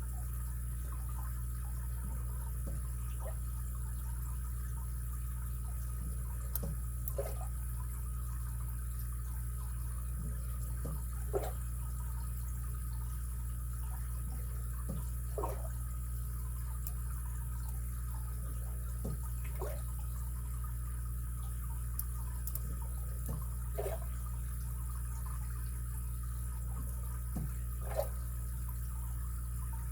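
Steady background hum and hiss, with faint, irregular clicks of a lock pick and tension wrench working the pins of a Schlage SC1 five-pin cylinder.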